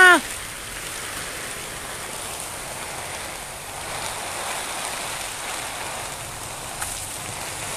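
Heavy rain pouring down steadily, an even hiss of downpour.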